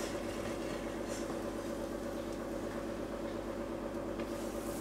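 Steady machine hum with a few held tones, even throughout, with no clatter or knocks.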